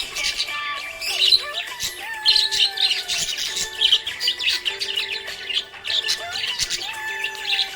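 Small parrots chirping and squawking in fast, dense chatter, over background music with long held tones.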